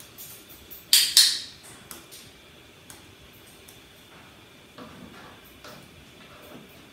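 Plastic training clicker built into a parrot target stick, clicked twice in quick succession about a second in: press and release, the click that marks the parrot's right move before its treat. Faint small taps and rustles follow.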